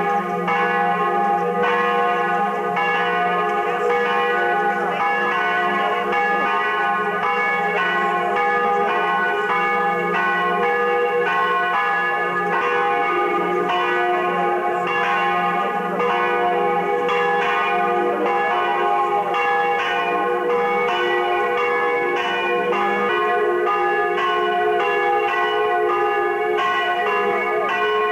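Church bells ringing in a continuous peal, several bells struck over and over so that their tones overlap and ring on.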